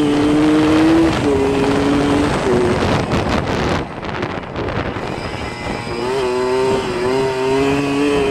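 Kawasaki KDX 80 two-stroke single-cylinder engine running while the dirt bike is ridden, its pitch shifting and breaking with throttle and gear changes. For a couple of seconds near the middle the engine note drops under a rough rushing noise, then comes back and rises as the throttle opens.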